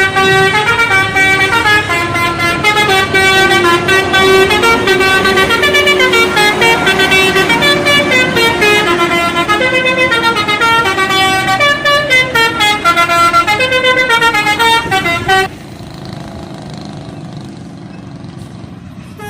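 Bus telolet horn: a set of air horns playing a fast melody, several tones at once stepping up and down in pitch, loud and continuous for about fifteen seconds before stopping suddenly, leaving quieter background noise.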